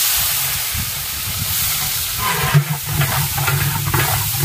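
Ground garlic and dried red chillies frying in hot oil in a large metal pot: a loud, steady sizzle. A metal ladle stirring adds crackle from about two seconds in.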